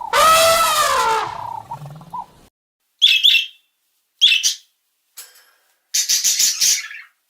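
A loud pitched animal call falling in pitch over about two seconds, then bird chirps: two short chirps and a longer chirping call near the end.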